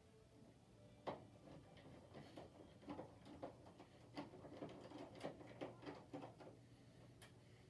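Faint, irregular clicks and ticks of a screwdriver working screws out of a desktop computer case, with a sharper click about a second in and a run of small ticks through the middle.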